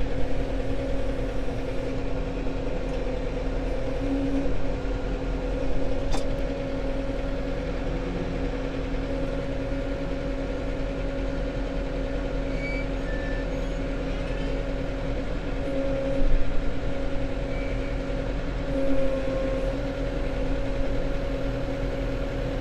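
Farm tractor engine running steadily while it works the front loader, with a sharp click about six seconds in and a couple of brief louder moments later on.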